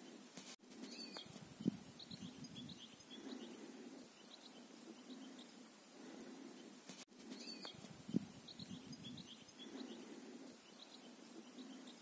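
Faint small-bird chirping over a low murmur, with a sharp thump once in each pass. The same stretch of sound repeats about every six and a half seconds.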